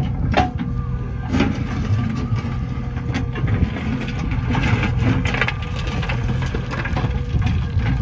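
Backhoe loader's diesel engine running steadily, with irregular knocks and crunching as soil and stones are handled.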